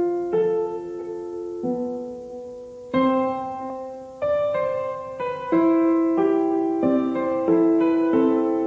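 Background music: gentle piano playing slow, sustained chords, with a new chord or note struck about every second and left to ring.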